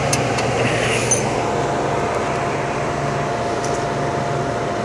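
Steady drone of the heater unit's machinery running: a low hum and fan-like rush with a faint steady whine, and a few light clicks.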